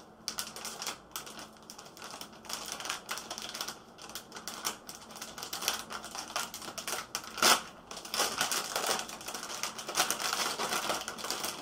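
A knife cutting and tearing open the sealed packaging of a new ABS module, making a dense, irregular run of crackles and clicks with one louder crack about seven and a half seconds in.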